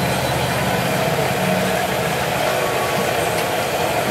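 Hot oil sizzling steadily in a large wok of deep-frying chicken, under a steady low engine-like drone.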